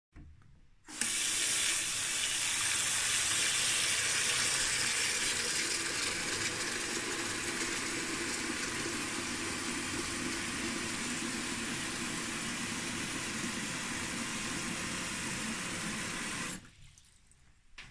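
Tap running into a washbasin, filling it with water. It comes on about a second in and is shut off abruptly near the end.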